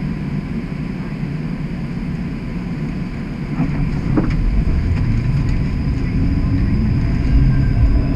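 Streetcar running on its rails: a low rumble builds from about halfway through and grows louder as a second streetcar pulls alongside.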